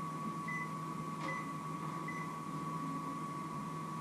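Steady electrical hum and thin high whine of a running kitchen appliance, with faint short beeps about every 0.8 s that stop about halfway, and a single click about a second in.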